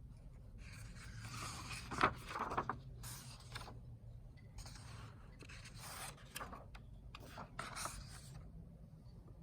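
Irregular rustling and scraping handling noises.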